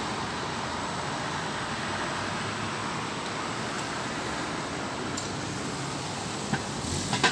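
Steady street traffic noise: a car and then a trolleybus passing close by, with two short knocks near the end.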